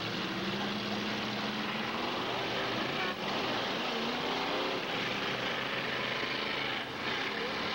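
Demolition derby cars' engines running and revving together in a steady, noisy din, with engine notes that rise and fall.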